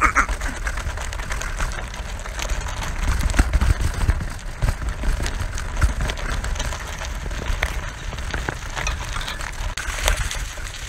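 BMX bike ridden over railway ties and gravel, then dry leaves: tyres crunching and crackling, with frequent clicks and rattles from the bike jolting over bumps and a low rumble from the jolts.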